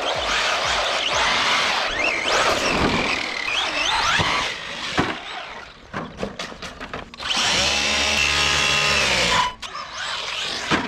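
Electric motor of a brushless RC short-course truck whining at full throttle, its pitch sweeping up and down as it accelerates and slows. A few sharp knocks come in the middle, then a steady high whine that falls in pitch and cuts off near the end.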